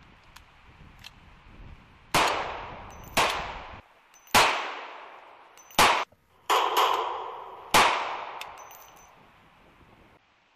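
Six pistol gunshots about a second apart, each with a long echoing tail.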